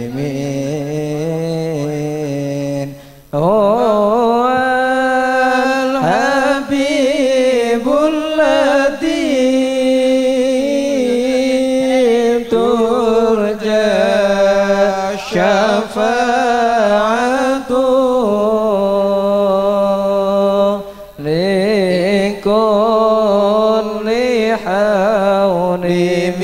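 A single voice singing a slow, chant-like melody with long wavering held notes, breaking off briefly about three seconds in and again about twenty-one seconds in.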